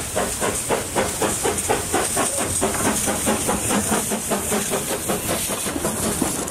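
Narrow-gauge steam tank locomotive pulling away and passing close by, its exhaust chuffing in an even beat of about five a second over the hiss of steam escaping around the cylinders. The hiss thins out in the second half as the coaches roll past.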